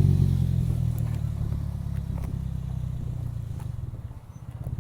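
Toyota Corolla engine idling through an aftermarket HKS exhaust just after being started. It settles to a steady low idle, dipping briefly near the end before picking up again.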